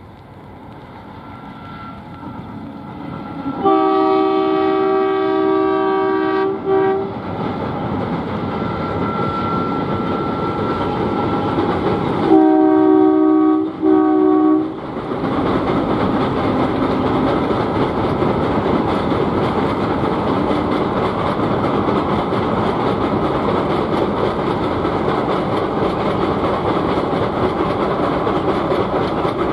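ALCO WDG3A diesel locomotive approaching and sounding its horn: one long blast about four seconds in, then two short blasts about twelve seconds in. It then passes close, notched up and running under power, followed by the steady rumble and clickety-clack of the coaches on the rails.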